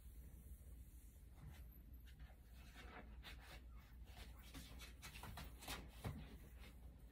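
Near silence with faint scratchy rubbing as fingers stroke a young puppy's fur, and a soft bump about six seconds in.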